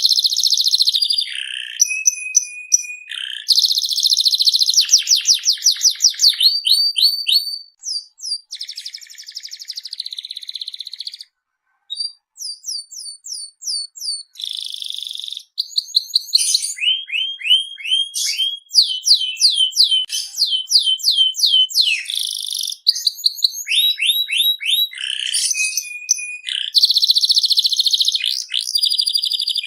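Domestic canary singing a long, varied song of fast trills and rolls, with runs of rapidly repeated sweeping notes. There is a brief pause about eleven seconds in.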